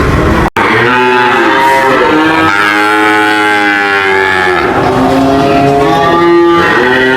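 Cow mooing: one long drawn-out moo of about four seconds that rises and then falls in pitch, followed by another moo starting about five seconds in. The sound breaks off sharply for an instant half a second in, just before the first moo.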